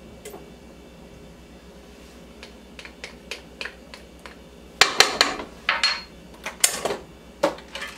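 A spoon tapping and scraping against a small ceramic bowl as crushed garlic is knocked out into a rice cooker's pot. Light ticks grow into a run of sharper clinks about five seconds in.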